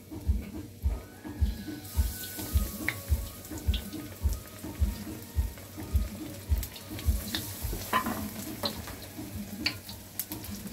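Battered baiganee fritters frying in hot oil: a sizzling hiss that grows stronger about two seconds in, with small clicks and pops. Background music with a steady beat of about two thumps a second runs underneath.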